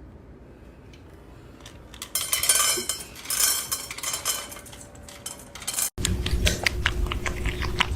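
Hard objects clattering and clinking in two loud bursts about two and three seconds in. After an abrupt cut, rapid sharp clicks play over a steady low tone.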